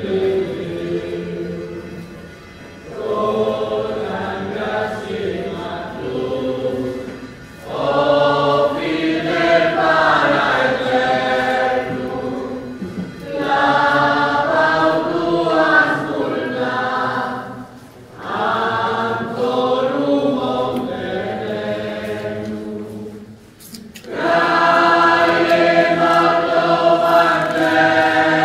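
Church choir singing a hymn during communion at Mass, in sung phrases of about five seconds each with short breaks between them.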